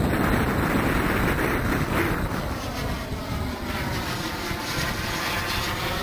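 Twin model gas-turbine engines of a scratch-built de Havilland DH110 scale jet, a steady jet rush as the model flies past. About halfway through the sound takes on a sweeping, phasing character as the jet comes nearly overhead, with wind buffeting the microphone.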